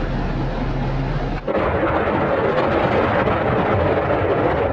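An A-10's GAU-8 Avenger 30mm seven-barrel Gatling cannon firing, heard at a distance as a continuous rolling roar that starts suddenly about a second and a half in and lasts about three seconds. Before it, a steady vehicle engine hum.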